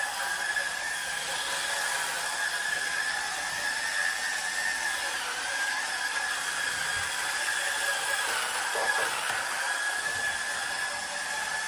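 Hurricane Spin Scrubber's electric rotary brush spinning against wet shower floor tile and grout: a steady high motor whine over a scrubbing hiss, its pitch dipping slightly now and then as the brush is pressed into the tile.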